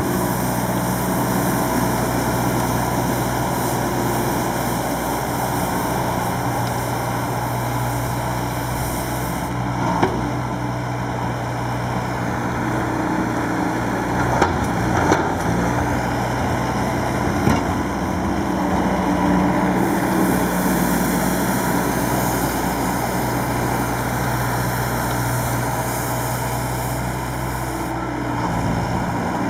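Bobcat skid-steer loader running steadily while its vacuum-and-brush sweeper attachment sweeps up sand. The engine note shifts a little in the middle, and there are a few short knocks.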